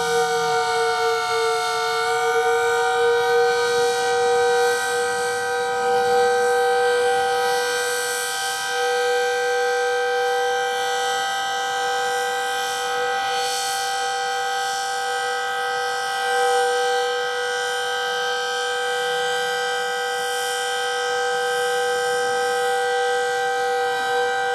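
Decot Red Arrow Model 12 outdoor warning siren, an old unit described as dying, sounding a steady tone for the alert signal, its pitch wavering slightly in the first couple of seconds and then holding level.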